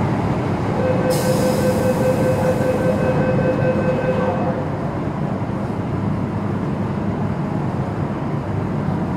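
Hong Kong MTR Kwun Tong line metro train running through a tunnel, heard from inside the train: a steady low rumble of wheels on rail. From about a second in to about four and a half seconds a steady whine sounds over the rumble, with a hiss during its first two seconds.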